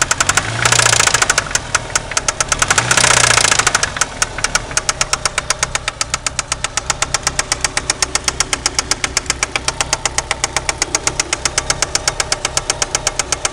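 Turbo 4G63 four-cylinder engine running with a sharp, rapid, evenly spaced knock, about seven a second, blipped twice to a brief rev early on. The knock is from a spun connecting rod bearing.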